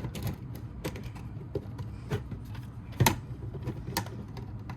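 Plastic clicking and creaking as the cover of a Simplex 4906-9101 strobe is pried at, with one louder snap about three seconds in.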